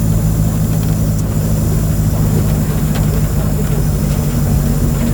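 Diesel engine of a Mercedes-Benz OF 1722M city bus running steadily with a low hum, its pitch rising slightly about four and a half seconds in.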